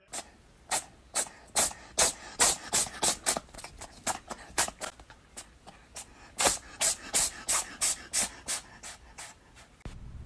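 A cat working at a person's long hair close to the microphone: a quick run of short rasping, breathy strokes, roughly three a second, that stop near the end.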